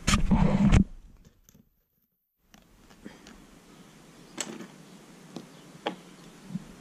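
Small plastic Lego pieces and paper being handled: light rustling with a few separate soft clicks. A short louder noise at the very start cuts off into a moment of dead silence.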